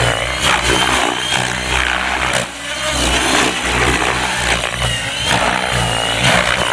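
Gaui X7 electric RC helicopter flying aerobatics at low head speed: rotor blade noise with a motor whine that rises and falls in pitch.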